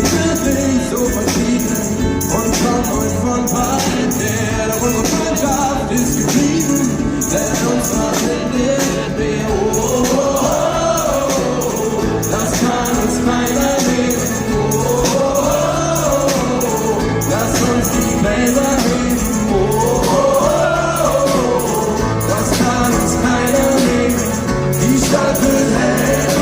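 Live pop-rock band playing loud and steady in an arena, with a regular drum beat and a melody line that swells up and falls back every few seconds. Singing voices are in the mix.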